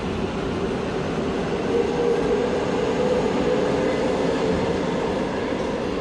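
Seoul Subway Line 3 train running along the platform behind the platform screen doors: a steady rumble with a humming whine that rises and swells about two seconds in, then eases off.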